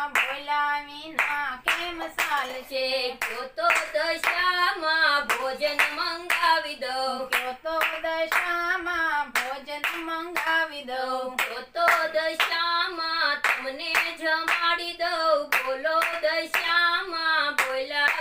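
Gujarati devotional song (a Dashama bhajan) sung in a repeating melody, with steady rhythmic hand clapping keeping time.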